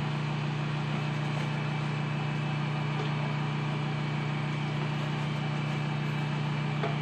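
Countertop food processor motor running, a steady, even hum as it blends chocolate cookie dough.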